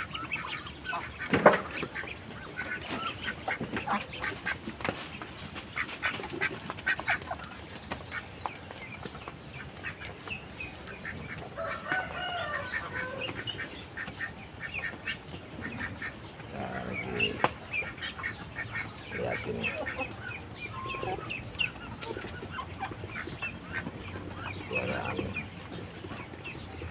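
A flock of ducks, Muscovy ducks and chickens in a poultry pen, making scattered short calls throughout. A single sharp knock comes about a second and a half in.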